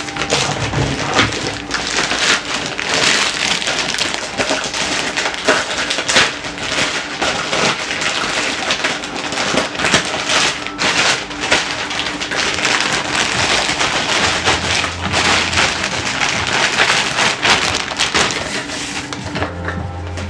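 Packaging being unwrapped and handled: a continuous, dense crinkling and rustling with many sharp crackles.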